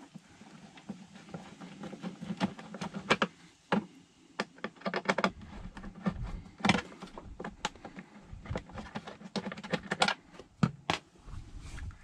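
Hand screwdriver turning out a screw on a truck's lower dash vent duct: irregular small clicks and scrapes of the tool on the screw and plastic trim, with a faint steady hum underneath.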